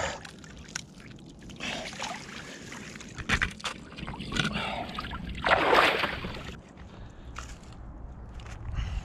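Icy water sloshing and splashing as a winter swimmer hauls himself out of an ice hole onto the ice, in several irregular rushes, the longest and loudest about six seconds in.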